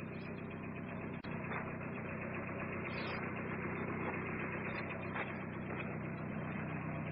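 A steady, low engine hum with no change in speed, typical of a vehicle or machine engine idling.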